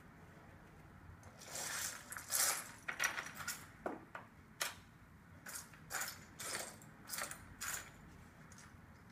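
Hands rummaging through loose plastic LEGO pieces in a container: short bursts of clattering and rattling that start about a second and a half in and keep coming until near the end.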